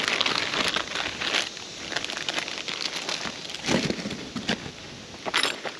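A thin plastic bag crinkling and rustling as it is handled. The crackling is densest in the first second and a half, then thins to softer, scattered rustles.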